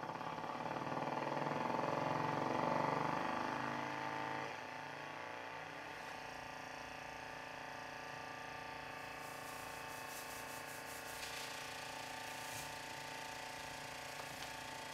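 A bare woofer driven by a function generator, giving off a steady buzzing tone with many overtones. It is louder for the first few seconds and drops about four and a half seconds in. Later, sharp ticks and rattles from grains bouncing on the vibrating cone come in on top.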